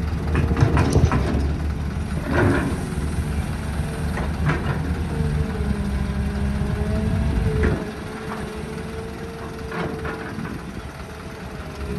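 Excavator working: its diesel engine runs steadily with a wavering whine, and sharp clanks and knocks come every few seconds. The engine sound drops and gets quieter about eight seconds in.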